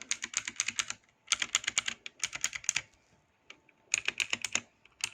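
MF Product Bluetooth mechanical keyboard keys being pressed in quick runs of sharp clicks, several bursts with short pauses between and a lull about three seconds in.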